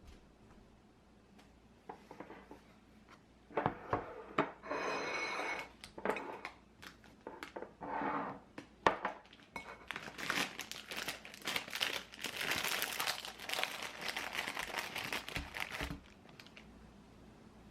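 Crinkling and rustling of packaging being handled, with scattered light knocks and clinks, in uneven bursts that stop a couple of seconds before the end.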